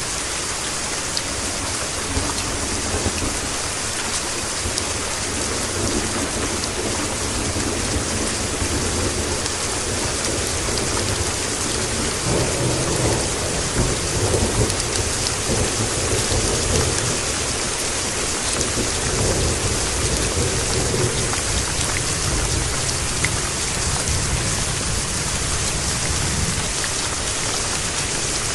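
Steady rain hissing, with a long low roll of thunder that builds from a few seconds in, is strongest about twelve to fifteen seconds in, and dies away near the end.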